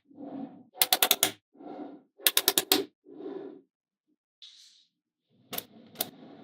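Small magnetic balls clicking as they snap together, in quick runs of four or five clicks alternating with softer rattling as the balls roll and settle. After a pause there is a short hiss, and then the clicking starts again near the end.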